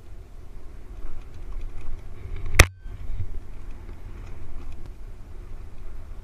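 Dual-sport motorcycle riding a rough dirt road: a steady low rumble of engine and wind buffeting on the microphone, with one sharp knock about two and a half seconds in.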